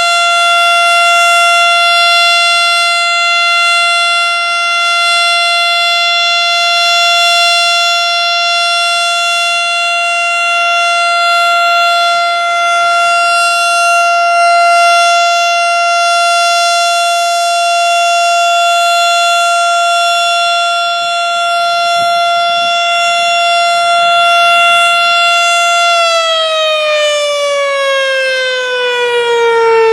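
Federal Signal STH-10 rotating electromechanical warning siren sounding the Alert signal: one loud, steady tone. Near the end the power drops and the siren begins to wind down, its pitch sliding steadily lower as the rotor slows.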